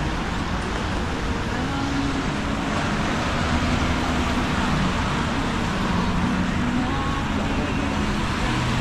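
Steady hiss of rain and traffic on a wet city street, with a low engine hum underneath.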